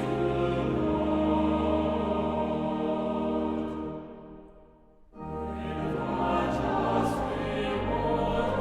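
Choir singing a hymn with sustained accompaniment; the music fades away about four seconds in and comes back a second later.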